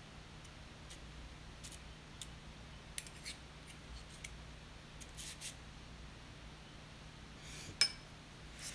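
Two metal spoons scraping and clicking together as peanut butter is pushed off one with the other, in soft scattered clicks, with one sharper click near the end. A faint steady hum runs underneath.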